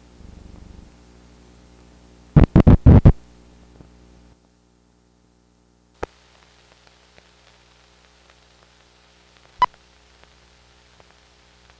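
Soundtrack of a 16mm film's countdown leader played on a projector: a steady hum with a quick cluster of about five loud pops a little over two seconds in, then the sound cuts out sharply about four seconds in. After a single click, one very short beep sounds, the sync 'two-pop' that lands on the 2 of the countdown.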